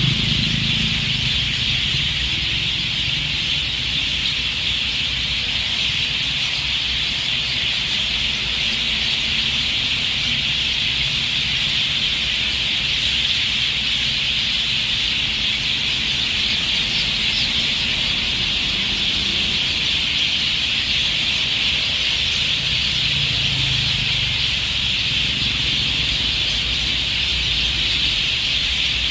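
Dense, unbroken chorus of a large flock of birds chirping all at once, a continuous high-pitched chatter.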